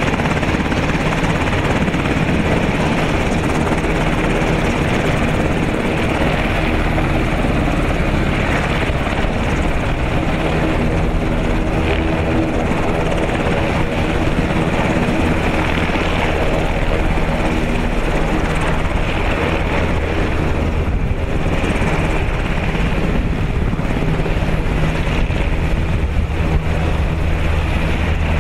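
Sikorsky VH-60N helicopter running on the ground, its turbine engines and main and tail rotors turning at a steady, even loudness as it sits and then taxis away.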